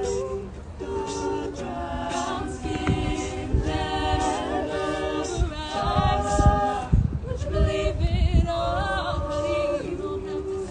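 Mixed-voice a cappella group singing in harmony, with a lead singer over sustained backing voices and no instruments.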